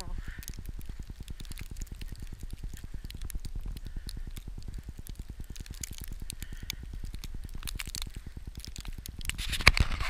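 Blizzard wind buffeting the microphone: a steady low rumble with scattered crackling, and a louder burst near the end.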